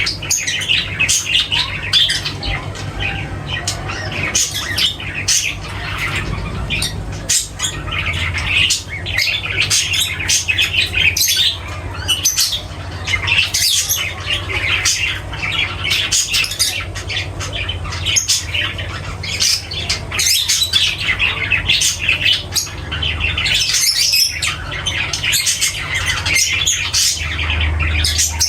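A flock of small pet parrots, budgerigars and lovebirds, chattering and squawking continuously in quick short calls, over a low steady hum.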